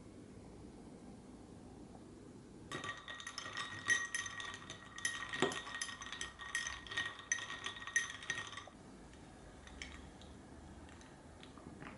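Ice cubes clinking against a glass as iced cafe mocha is stirred with a straw: a quick, ringing run of clinks starting about three seconds in and stopping after about six seconds.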